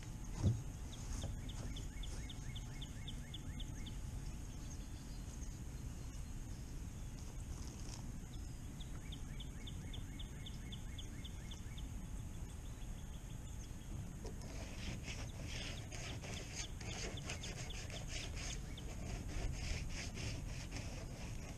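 Outdoor farm ambience with a steady low wind rumble. A bird twice repeats a quick run of short high notes, and busier high calls and clicks crowd in for the last several seconds.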